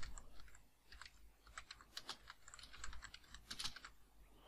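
Quiet typing on a computer keyboard: an irregular run of light keystrokes.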